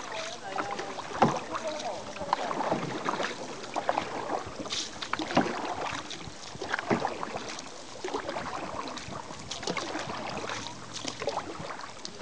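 Small boat on a lake: irregular splashes and knocks of water and paddling around the hull, with faint voices.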